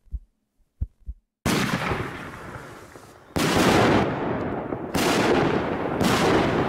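Aerial firework shells bursting in the sky, four sudden bangs about a second and a half apart, each trailing off in a long fading rush of noise.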